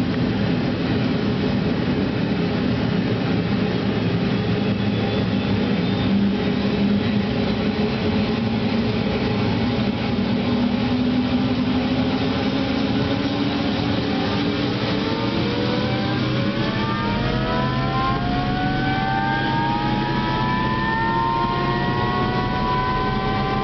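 Helicopter turbine engine and rotor running up for take-off, heard from inside the cabin: a loud, steady engine noise, then from about two-thirds of the way in a whine that rises in pitch as it spools up toward flight speed.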